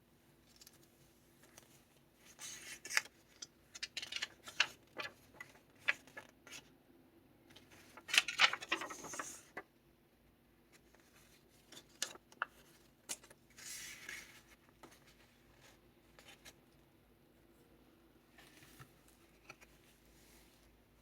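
Pages of a handmade junk journal of kraft envelopes and paper being turned and handled: paper rustling with sharp little ticks and taps, in bursts, the longest rustle a little past the middle.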